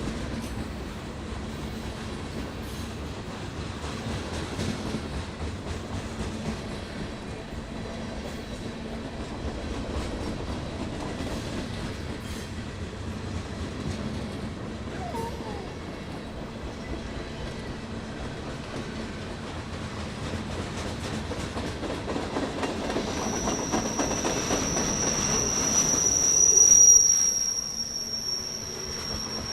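Train rolling along the rails with a steady rumble. Past the middle a high wheel squeal sets in and grows louder, peaking a couple of seconds before the end as the sound draws closest, then falling away.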